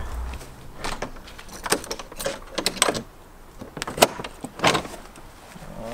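A few footsteps, then a bunch of keys jangling and clicking against the lock of a garden shed door as it is unlocked: a string of short, sharp metallic clinks spread over several seconds.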